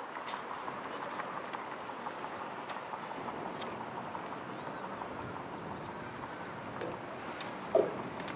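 Low, steady murmur of a crowd of spectators in outdoor stands, with a few light clicks, a faint steady high tone, and one brief louder sound near the end.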